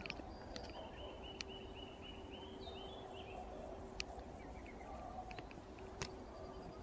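A bird calling: a quick run of about a dozen short, evenly repeated high notes lasting about two seconds, over a faint steady hum, with a few sharp clicks scattered through.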